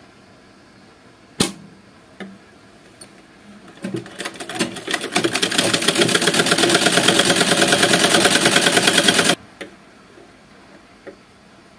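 Black domestic sewing machine running a seam through cotton fabric: a fast, even rattle of stitching strokes that builds up about four seconds in, runs steadily, and stops abruptly about five seconds later. A single sharp click comes just over a second in.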